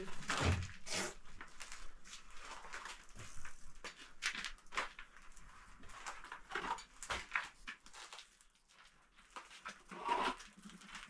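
Irregular knocks, taps and scraping noises at uneven intervals, with a quieter stretch a little past the middle.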